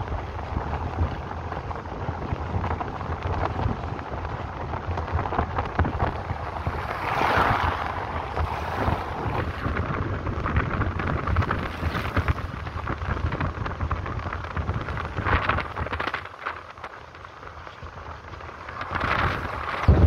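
Wind buffeting the microphone at a car's open window over the steady low rumble of tyres rolling on a cobblestone road. The noise swells about seven seconds in, drops quieter for a couple of seconds near the end, then rises again.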